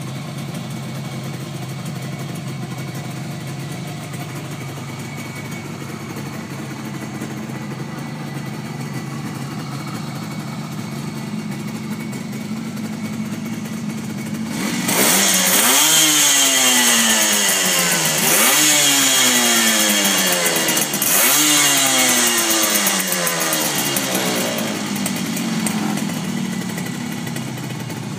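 Suzuki GT200 X5's two-stroke twin engine idling steadily, then revved three times, starting about halfway through. Each blip of the throttle sweeps up and falls back before the engine settles to idle again. It sounds really good, in sound running order.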